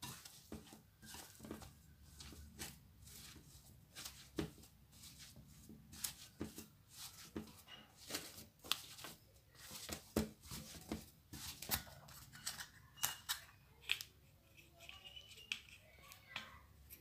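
Hands kneading soft donut dough in a bowl: faint, irregular pats and taps, a few each second.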